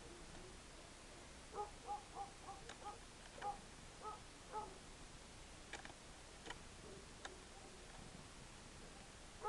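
A bird giving a series of short, repeated calls, about a dozen in quick succession between about one and a half and five seconds in. A few sharp clicks follow.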